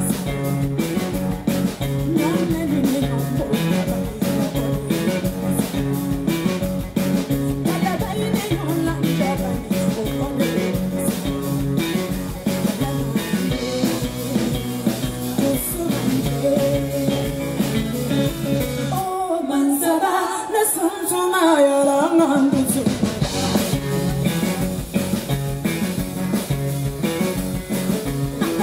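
Live band music: a woman singing lead over electric guitars, bass guitar and drum kit with a steady beat, heard through the festival PA. About nineteen seconds in, the bass and drums drop out for a few seconds, leaving a lone wavering melodic line, then the full band comes back in.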